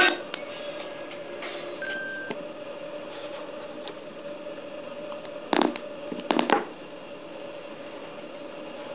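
Room tone with a steady faint hum and hiss, broken by two brief clusters of clicks or knocks about five and a half and six and a half seconds in.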